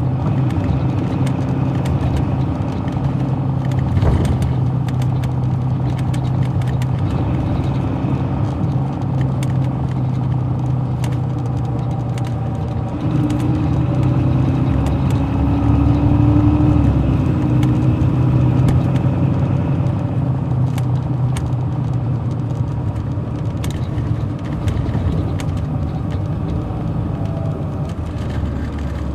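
Caterpillar C13 ACERT inline-six diesel of an MCI D4500CL coach, heard from inside the bus as it drives: a steady engine drone with scattered clicks and rattles. About halfway through, the engine note rises and swells to its loudest, then eases off.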